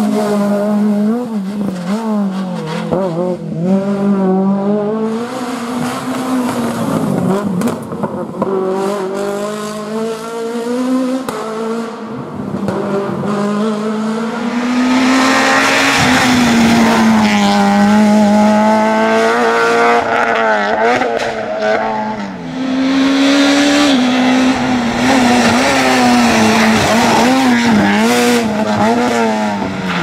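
Peugeot 106 rally cars' four-cylinder engines at full throttle on a tarmac stage, several cars one after another, revs climbing and dropping with gear changes and lifts through the bends. Tyres squeal at times, mostly in the second half.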